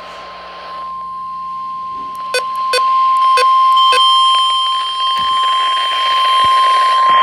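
Weather-radio emergency alert tone: a single steady beep near 1 kHz held without a break, announcing a flood warning. A few sharp clicks sound between about two and four seconds in, and a fainter, higher tone joins about four seconds in.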